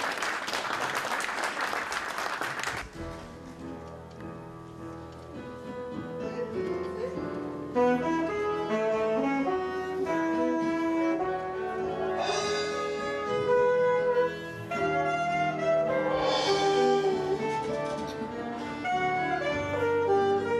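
Hand clapping for about the first three seconds, then a live band playing an instrumental tune: an alto saxophone melody over keyboard and drums, with two brighter cymbal swells in the middle.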